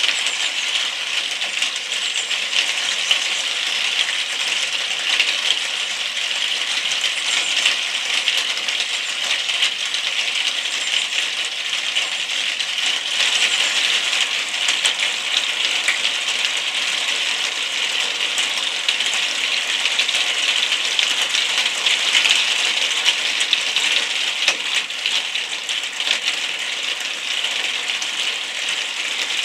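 Steady rain pattering, a dense crackle of many drops striking hard surfaces close by.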